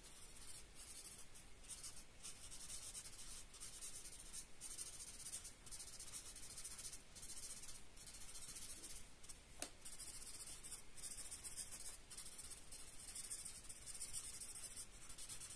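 Felt-tip Promarker nib scratching on paper in many short, quick shading strokes, with one sharp click near the middle.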